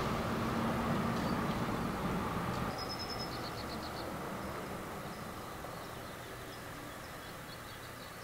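Steady rumble of freeway traffic that eases off after a couple of seconds. About three seconds in, a bird gives a quick run of high chirps, and a few more short chirps follow later.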